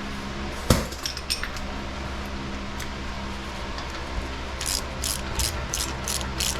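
Hand tools working on metal car parts over a steady shop hum: a sharp metal clank about a second in with a few lighter clinks after it, then near the end a run of quick, even metallic clicks, about three a second.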